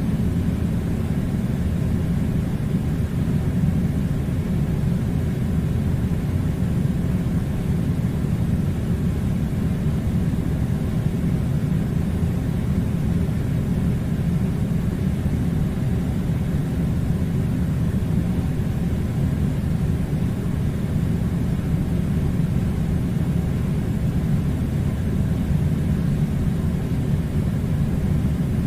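Air conditioner running: a steady low rumble of blowing air.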